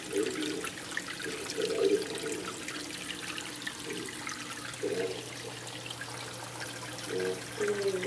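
Aquarium filter return splashing and trickling into the tank water, with a steady low hum underneath.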